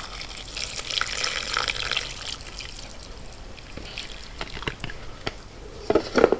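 Pho broth poured in a stream from a foam takeout container into a glass bowl of noodles, splashing and trickling, strongest for the first two or three seconds and then thinning to a dribble. A few light knocks near the end.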